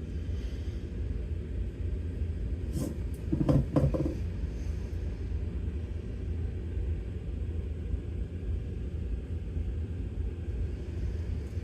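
Steady low rumble of background noise, with a short cluster of knocks and rustles of hands handling something about three to four seconds in.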